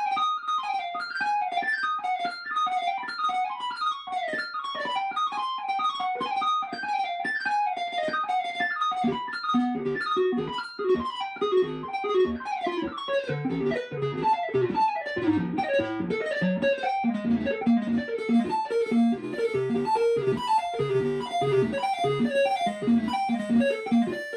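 Moog Subharmonicon analog synthesizer playing a fast, repeating sequenced pattern of short plucky notes. About nine seconds in, a lower repeating line joins underneath.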